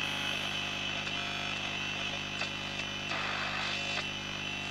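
A Philips BF401A valve radio's loudspeaker gives shortwave static and hiss between stations as the band is swept, with a few short crackles about halfway through and later. A steady low hum runs underneath: the set's low-frequency hum, which an added ripple filter failed to cure.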